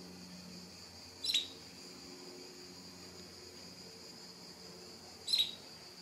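Canary giving two short, sharp call notes about four seconds apart, over a steady high-pitched hiss.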